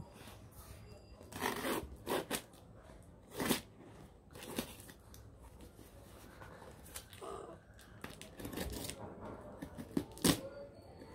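Scissors cutting and snipping through packing tape and plastic wrap on a cardboard parcel, in a series of short separate crinkling, tearing strokes.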